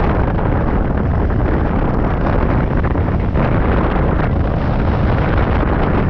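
Loud, steady wind noise from the airflow of hang-glider flight buffeting the microphone, a deep rumbling rush with no break.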